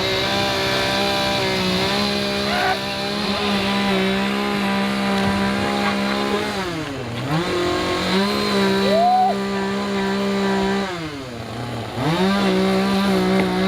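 Two-stroke chainsaw held at high revs. The engine note drops off sharply and climbs straight back up twice, about seven seconds in and again near eleven seconds, as the throttle is let off and squeezed again.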